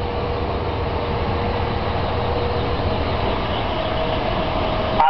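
A motor vehicle running on the street: a steady low rumble with a faint steady hum, growing slightly louder near the end.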